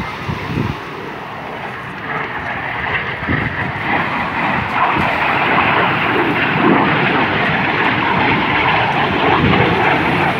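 BAE Hawk T1 jets of the Red Arrows flying past low over the sea, a broad jet rush that swells from about two seconds in and stays loud.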